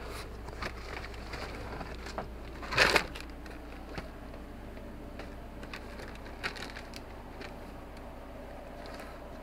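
Stowed gear and plastic bags being rummaged through: scattered rustles and light knocks, with one loud crinkling rustle about three seconds in, over a faint low hum.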